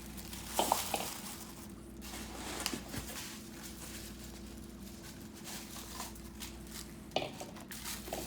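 Coconut-shell bowls and their packaging being handled while unpacking: a steady rustle with a few light knocks as the bowls touch and are set down, one just under a second in and another near the end.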